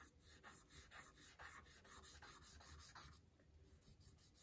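Faint scratching of a charcoal stick on sketchbook paper: quick shading strokes, about three a second, filling in a dark area of the drawing. The strokes pause briefly about three seconds in and start again near the end.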